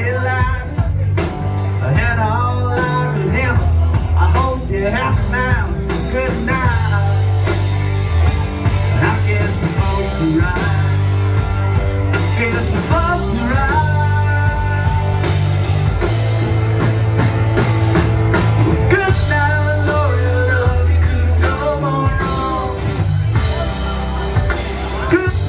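Live rock band playing: electric guitars, bass guitar and a drum kit over a steady beat, with wavering lead lines above.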